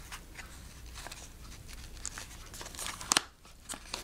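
Packaging being handled: light rustling and crinkling, with small clicks and one sharper click about three seconds in.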